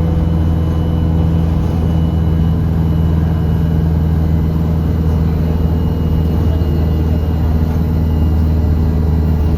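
Turbocharged diesel bus engine running steadily under way, heard from on board: a loud, even low drone with a faint steady high whine above it.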